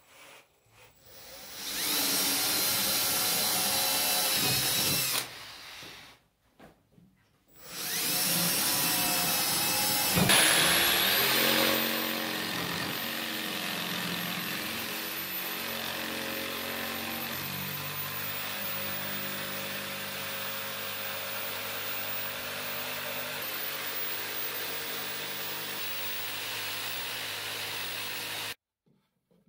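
Corded jigsaw cutting through 3/4-inch MDF board. It runs for a short spell of a few seconds, then after a pause makes a long steady cut that stops abruptly near the end.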